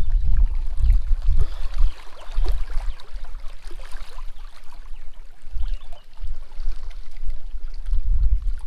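Wind buffeting the microphone in gusts, the loudest sound, with small waves lapping and splashing against the rocky shore.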